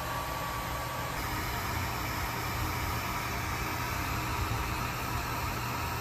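Steady low hum with an even hiss over it, like a motor or machine running, with no separate events; a faint high tone drops out about a second in.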